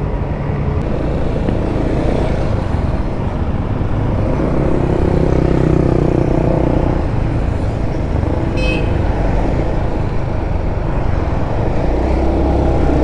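Honda Beat single-cylinder scooter riding along a road, its engine and the rush of riding noise steady throughout, with traffic passing. A short horn toot sounds about two-thirds of the way through.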